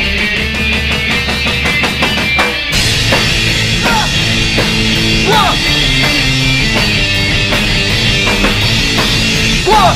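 Punk rock band playing an instrumental passage with drum kit and electric guitar, no vocals. It opens with a fast run of even drum hits, then the cymbals come in with the full band a little under three seconds in.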